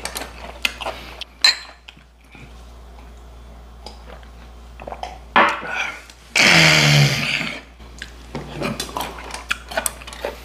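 Chopsticks and glasses clicking and tapping on a table over a meal, then about six seconds in a loud, rough belch lasting about a second.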